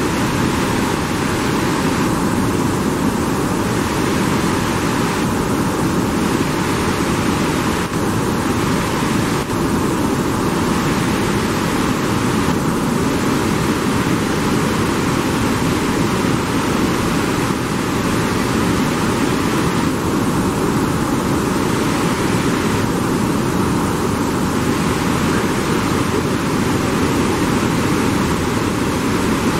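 Steady rushing of water from the Iguaçu Falls and the white-water rapids below them, a dense even noise with no break.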